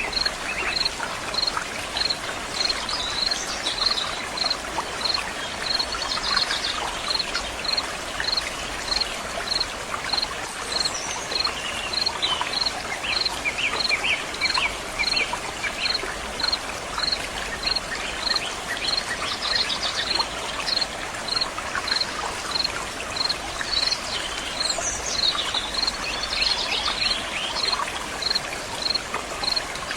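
Stream water flowing steadily, with birds singing at intervals and a regular high insect chirp about twice a second.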